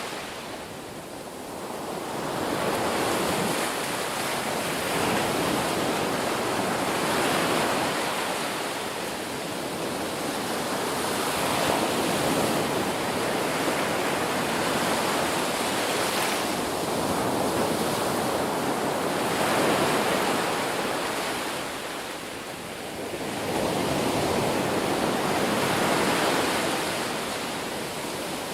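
Ocean surf: waves breaking and washing ashore in a continuous rush that swells and eases, each surge lasting several seconds, with brief lulls between them.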